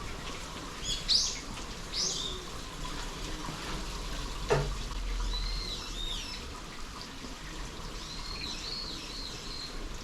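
Small birds chirping in short high calls a few times over a steady wash of water noise, with a quick falling note about halfway through.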